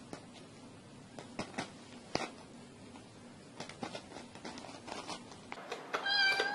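Faint scattered clicks and rustles as a cat's paw scrapes cheese puffs across a woven mat. Near the end comes a louder noise with a brief high-pitched tone.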